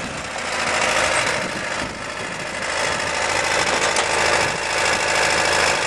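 Kohler Magnum 20 engine of a 1989 Ariens GT20 hydrostatic garden tractor running steadily while the tractor moves slowly, dipping slightly in loudness about two seconds in.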